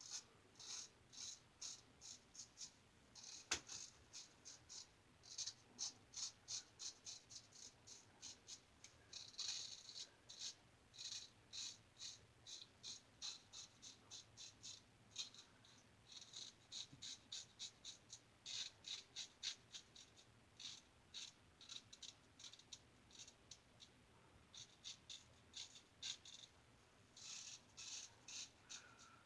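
Faint, quick strokes of a razor blade scraping through thick, wiry whiskers on a lathered face, in short runs of several strokes a second with brief pauses between passes.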